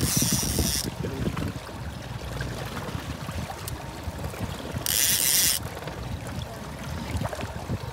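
Wind rumbling on the microphone over choppy water around a boat, with two short bursts of hiss, one near the start and one about five seconds in.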